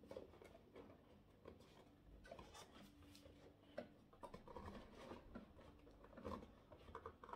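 Near silence broken by faint handling noises: soft clicks, taps and light rustling of small cardboard packaging being handled.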